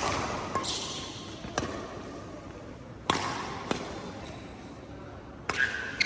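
Badminton racket strings striking a shuttlecock in a series of sharp cracks, with the loudest hits at the start, about three seconds in and about five and a half seconds in, and echo from a large hall.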